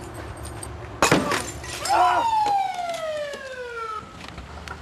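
A glass bottle smashes about a second in. Then a police car siren gives a short rise and a long falling wail that winds down over about two seconds.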